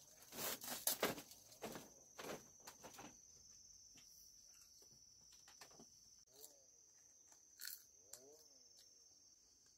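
Steady high-pitched drone of insects, with a few footsteps and knocks on a bamboo-slat floor in the first three seconds.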